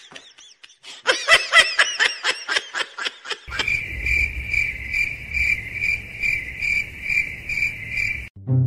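Quick, high-pitched giggling for the first few seconds, then crickets chirping in an even pulse about twice a second, which starts and cuts off abruptly.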